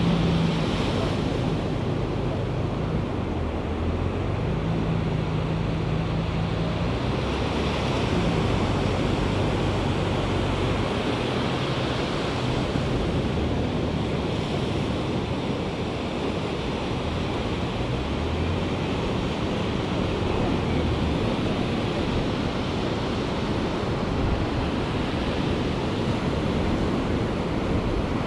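Ocean surf breaking and washing up the beach, a steady rushing wash, with wind on the microphone. A low hum sits underneath and fades out about two-thirds of the way through.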